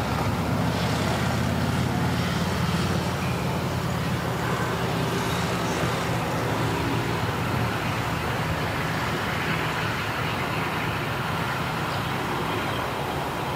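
A motor engine running steadily, strongest in the first half and easing off a little after that.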